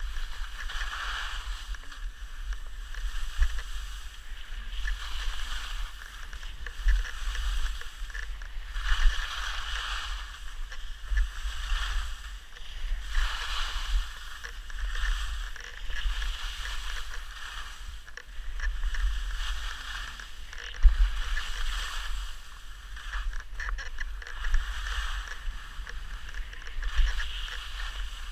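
Skis sliding and scraping over packed snow in rhythmic swishes, one swell every two seconds or so with each turn, over a steady low rumble of wind on the camera microphone.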